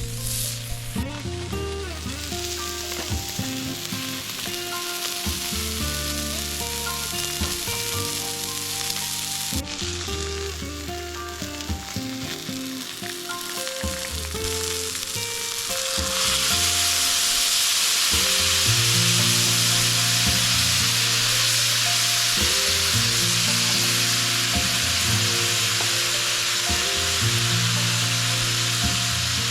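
Steak frying on a thick iron griddle, a steady sizzle that grows clearly louder about halfway through, with background music under it.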